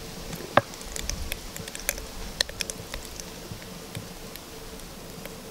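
Ketchup squeezed from a plastic squeeze bottle into a frying pan: a sharp click about half a second in, then a run of small wet clicks and squelches that thin out after about three seconds, over a faint steady hum.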